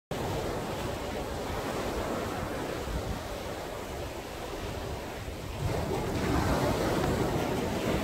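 Fairly high sea waves breaking and washing up a sandy beach, the surf growing louder a little past halfway.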